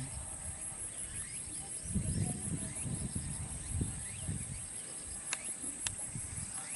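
Insects chirring in a steady, high, evenly pulsing drone, with low rumbling on the microphone partway through and two sharp clicks near the end.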